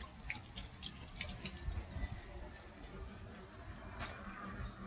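Water splashing and trickling off a small wooden water wheel, with scattered drips and a sharper click about four seconds in.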